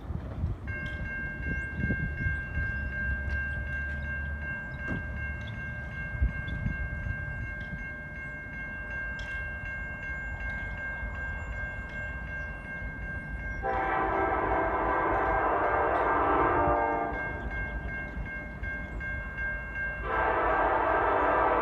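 A CN SD70M-2 diesel locomotive's air horn sounds two long blasts: the first about 14 seconds in, lasting about three seconds, and the second starting about 20 seconds in. Before the horn, a low rumble and a steady high tone.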